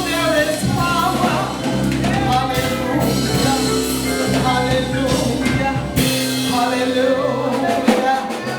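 Live contemporary gospel worship music: singers over a full band with keyboard and drums, the bass dropping out about six seconds in.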